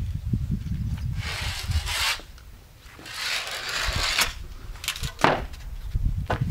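Two long scraping rubs, each about a second, of hands working over the waterproofing strip on the foundation wall, followed by a few sharp knocks.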